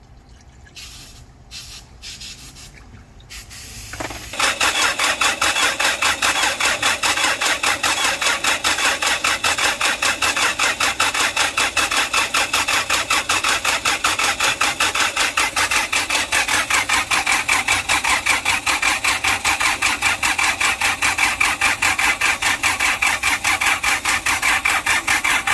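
Hyundai Porter II D4CB diesel engine being cranked on its starter, starting about four seconds in as a loud, fast, even run of pulses that keeps going. The loud cranking noise comes from the new timing chain and tensioner not yet oiled.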